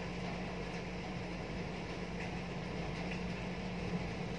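Steady rainfall, an even hiss with a few faint drips, over a constant low hum.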